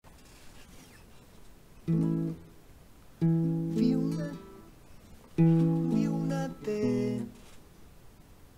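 Acoustic guitar playing four separate strummed chords, each left to ring for about a second before the next, with faint hiss in the gaps.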